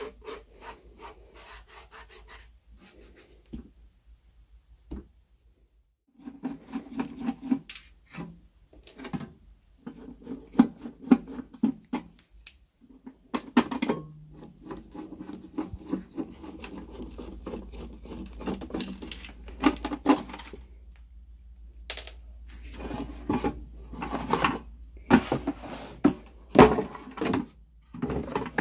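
Sheet-metal housing of a circa-1930 Pulvis-R insecticide duster being rubbed and handled with a gloved hand: irregular scraping with light metallic knocks and clatter, broken by a short pause about five seconds in.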